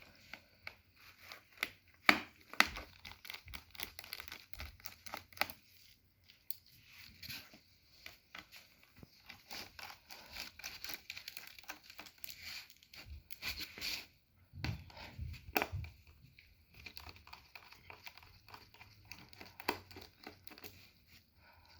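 Hands working on an opened laptop screen assembly: irregular small clicks, scrapes and crinkly, tearing-like rustles of plastic, screws and tape being handled. There are a couple of sharper clicks about two seconds in and a couple of dull knocks about fifteen seconds in.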